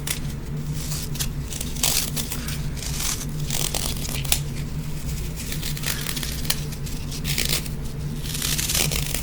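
Crumbly foam block being crushed and crumbled by hand, a run of irregular crunchy crackles, over a steady low hum.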